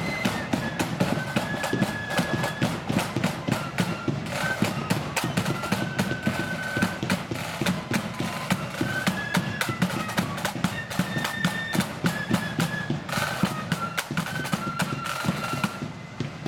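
Marching flute band playing a march: flutes carry a high melody over steady snare and bass drum beats.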